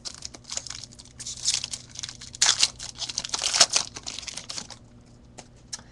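A foil trading-card pack torn open and crinkled by hand. The rustling comes in dense bursts, is loudest two to four seconds in, and dies down to a few light ticks after about five seconds.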